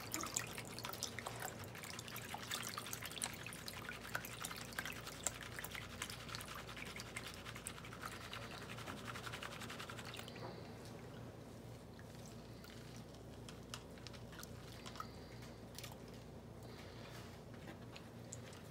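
Water sloshing, splashing and dripping as a plastic gold pan of black-sand concentrate is swirled and dipped in a basin of water. The small splashes are busy for about the first ten seconds, then turn quieter and sparser.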